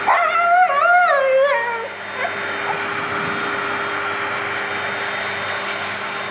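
An Alaskan Malamute gives a drawn-out, wavering call that bends up and down in pitch for about two seconds. A pet blow dryer rushes steadily underneath and runs on alone after the call stops.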